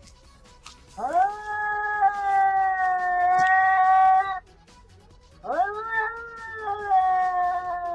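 Domestic cats caterwauling in a face-off: two long, drawn-out yowls, the first rising at its start and then held, the second starting a second after the first ends and slowly sinking in pitch. These are the threat yowls of a territorial standoff between two cats.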